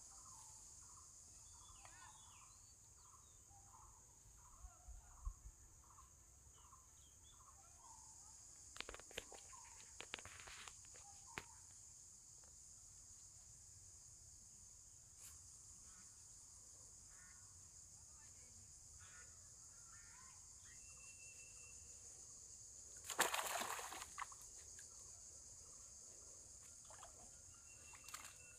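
Faint outdoor ambience by the water: a steady high-pitched insect drone with scattered bird calls. A few clicks come about a third of the way in, and a short, sharp noise about three-quarters of the way through is the loudest thing.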